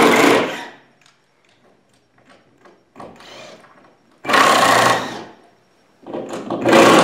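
Cordless drill/driver backing screws out of a plywood shipping crate, its motor running in short bursts: one stopping about half a second in, another of about a second a little after the midpoint, and a third starting near the end.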